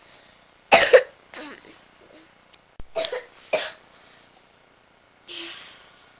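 A young girl's dry cough: one sharp cough about a second in, then a few softer coughs spaced over the next few seconds, the last and faintest near the end.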